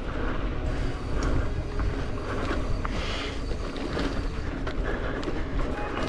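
Mountain bike riding down dirt singletrack: a steady rumble of tyres and wind on the camera microphone, with scattered clicks and rattles from the bike over roots and rocks.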